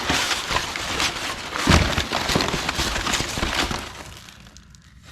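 Packaging and parts being handled: dense crackling and rustling with scattered clicks and clatter, dying away after about four seconds.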